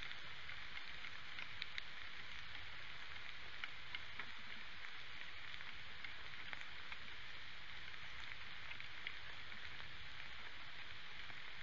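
Steady rain falling, an even hiss with scattered sharp ticks of single drops.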